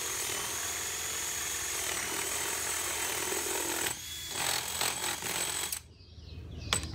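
Cordless drill with a 7/8-inch bit boring through a thin piece of wood, a steady high whine. About four seconds in the pitch drops and the drill runs in uneven bursts, then it stops; a few sharp clicks follow near the end.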